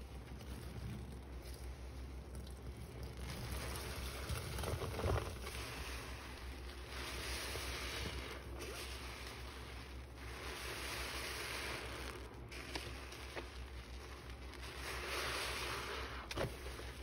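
Soap-soaked sponges squeezed by hand in sudsy water: wet squishing with fizzing, crackling foam that swells up in about four long squeezes.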